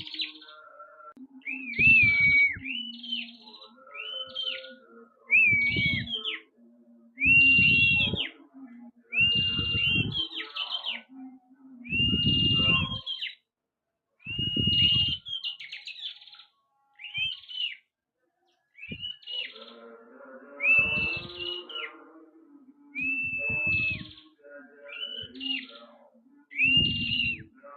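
Prenjak kepala merah singing steadily: short, high whistled phrases repeated every second or two, many a held note ending in a quick rising-and-falling flick. Low rumbling noise sits under several of the phrases.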